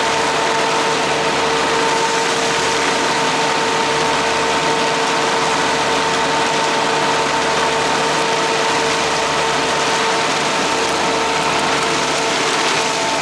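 Kubota D1105 three-cylinder diesel engine of a ride-on vacuum running at a steady speed, with a steady high whine over it.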